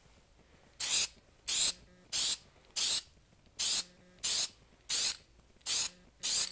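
Krylon spray-paint can sprayed in nine short, even bursts of hiss, about one every 0.7 seconds.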